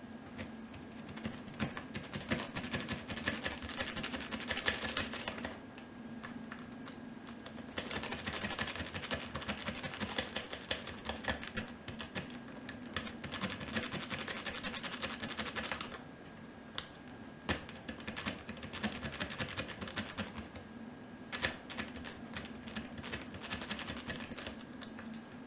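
Rapid metallic clicking and rattling of a lock pick raked and zipped back and forth over the pins of a Peugeot 306 car door lock, under light tension. It comes in several bursts of a few seconds each, with short pauses between them.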